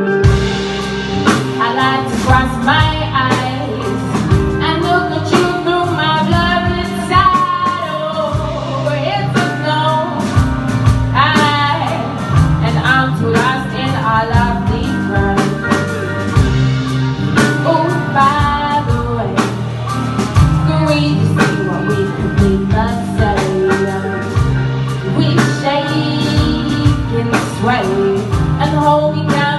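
A band playing a song live, with a singer's voice over guitar and drums throughout.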